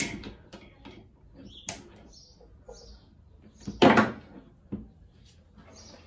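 Clicks and knocks of handling as a drill chuck is fitted onto a washing-machine motor's shaft, with a sharp click about two seconds in and the loudest knock about four seconds in.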